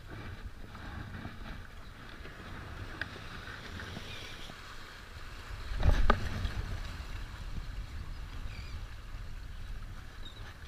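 Small waves washing against jetty rocks, with wind buffeting the microphone. About six seconds in, a brief louder rush with a knock as the arm swings past the microphone in a cast.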